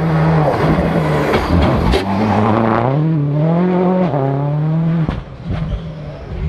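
Rally car passing flat out, its engine climbing in pitch through the gears with a couple of sudden drops at the shifts. About five seconds in the engine note falls away and a few sharp cracks follow.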